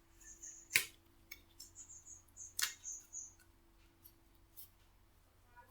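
Faint handling noises: two sharp clicks, about a second in and again near the middle, among smaller ticks and short, high, light rustles, as objects are picked up and moved by hand.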